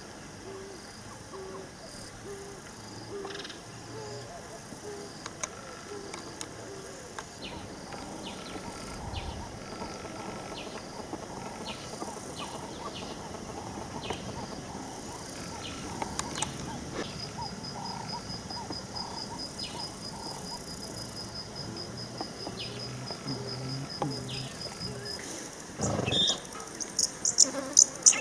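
Bushveld ambience of insects chirping and buzzing, with a short series of low, evenly spaced calls in the first few seconds. A fast, even insect trill runs from about two-thirds of the way in, and louder high chirps come near the end.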